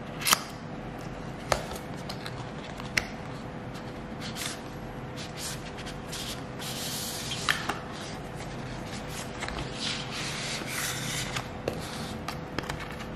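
Cardboard packaging of a watch band handled by hand: the box, lid and sleeve rubbing and sliding against each other, with a few sharp light clicks and taps.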